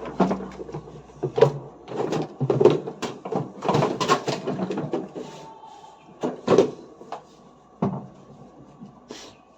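Irregular knocks and clunks of washing-machine drum parts being handled and set down.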